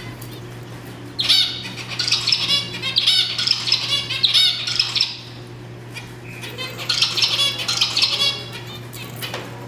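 A group of zebra finches calling: many short, rapid high calls crowding together from about a second in to about five seconds, then a second burst around seven to eight seconds. A steady low hum runs underneath.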